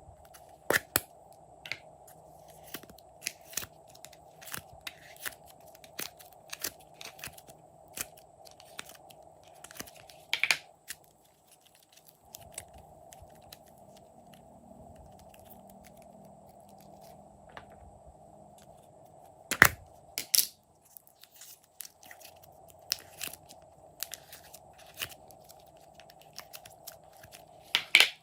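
Glossy slime being squished and worked by hand, giving an irregular run of sticky clicks and pops, with a few louder pops about ten and twenty seconds in.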